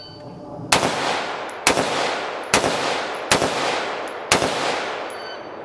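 Five rifle shots from a 12.5-inch AR-style carbine, fired about a second apart, the first just under a second in, each followed by a short echoing tail. It is a timed five-shot string against a 3.5-second par.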